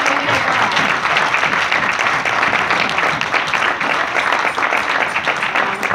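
Church congregation applauding, many hands clapping at once, easing off near the end.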